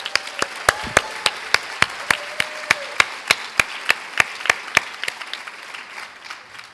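Audience applauding, with loud close hand claps about three a second from the speaker clapping along at the podium microphone. The close claps stop about five seconds in and the applause dies away near the end.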